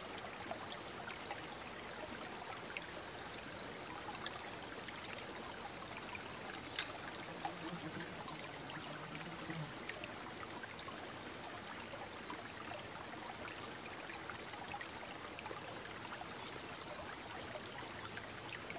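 Small forest brook babbling over stones: a steady rush of running water, with one sharp click about seven seconds in.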